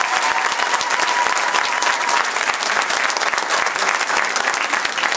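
Audience applauding: many hands clapping in a dense, steady patter, with a steady high tone held over it for the first two seconds.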